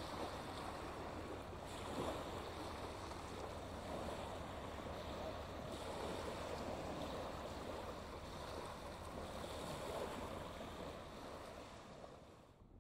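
Small waves washing in and out on a shingle beach, a steady surging hiss of water, fading out near the end.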